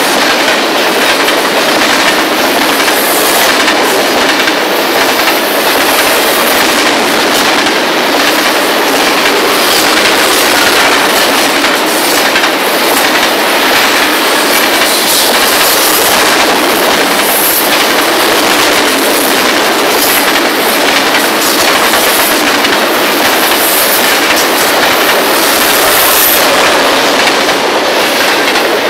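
Freight train's tank cars and boxcars rolling past close by: a loud, steady noise of steel wheels running on the rails.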